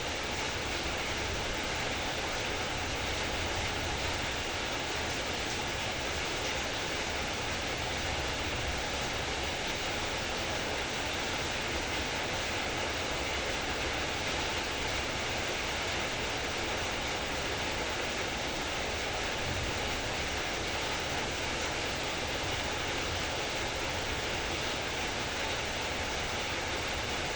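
Heavy rain falling with a steady, even hiss.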